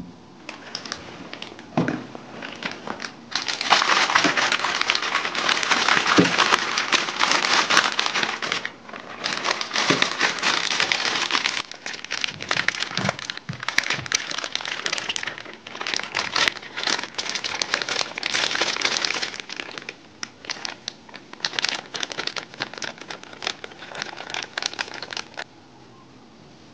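Plastic zip-top bag crinkling as it is kneaded by hand to work seasoning into the cucumber and nagaimo inside, in several bouts of a few seconds each. It stops near the end.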